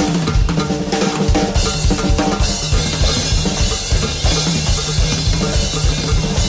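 Drum kit played in a fast, dense groove: rapid bass drum and snare strokes with rimshots under a steady wash of cymbals, over a sustained pitched accompaniment.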